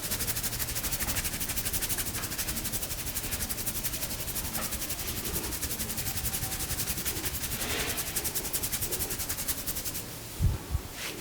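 Hands rubbing rapidly over the scalp and through the hair in a head massage, a hissing rub in a fast, even rhythm of strokes. Near the end the rubbing stops and two low thumps follow.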